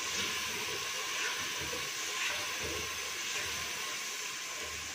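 Onion-tomato masala frying in a clay pot with a steady sizzling hiss, stirred with a wooden spoon that gives a few soft knocks.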